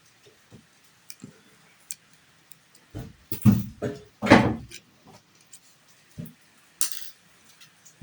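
SIM ejector pin and plastic SIM card tray being worked out of a phone's frame: scattered small clicks and taps, with a louder run of knocks and handling noise between about three and five seconds in.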